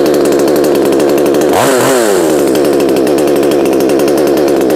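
Bu-Ko 65cc two-stroke petrol chainsaw idling steadily just after a warm restart without the choke, with one quick rev up and back down about a second and a half in.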